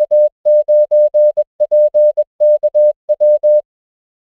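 Morse code sent as a single pure beep tone, a fast run of short and long beeps that stops abruptly about three and a half seconds in.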